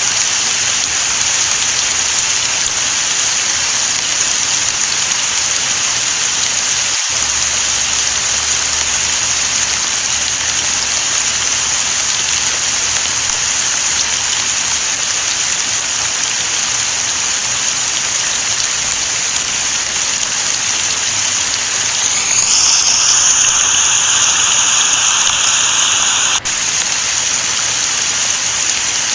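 Steady rain falling, a loud, even hiss. About three-quarters of the way through, a louder layer swells in for a few seconds and then cuts off suddenly.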